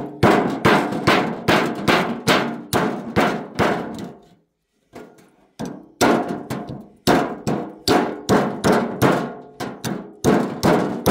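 Hammer striking a scythe blade on a small peening anvil, sharp metallic blows that ring briefly, about three a second, stopping for a moment about four seconds in and then resuming.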